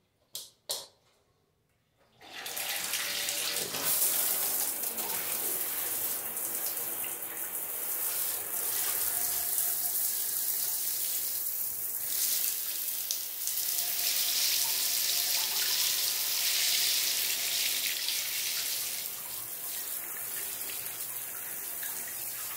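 Two short clicks, then about two seconds in a handheld shower head starts spraying water into a bathtub, a steady hiss that keeps on with small swells.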